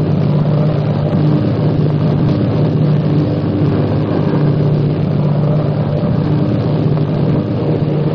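Airliner engines droning steadily as a radio-drama sound effect: a constant low hum that wavers slightly, heard through a narrow, old-fashioned recording.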